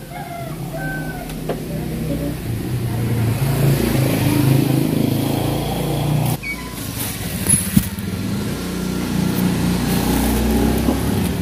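A motor vehicle engine running close by, a low rumble that builds over the first few seconds, dips about six seconds in, then comes back up.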